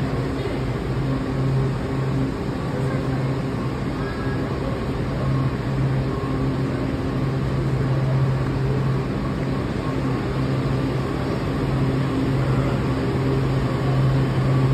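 Washington Metro train standing at the platform, its equipment giving a steady hum with a low tone and a few fainter higher tones over a background rush.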